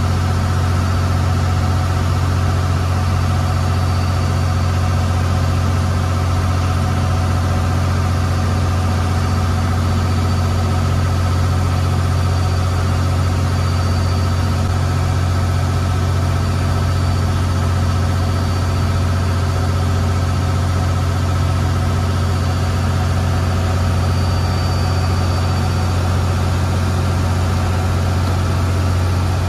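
A river boat's engine running steadily underway: an even, unbroken low drone with a strong hum and steady higher tones over it.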